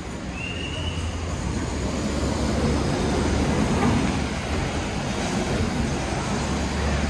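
A road vehicle passes by, its engine rumble and tyre noise swelling to a peak about four seconds in and then easing off.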